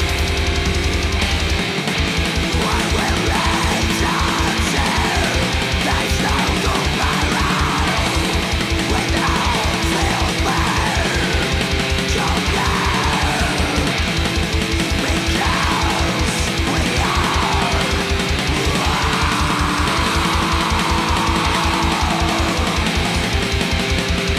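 Heavy metal music: electric guitars over drums. About a second and a half in, a very fast, even kick-drum pattern starts, and falling pitch sweeps run above it.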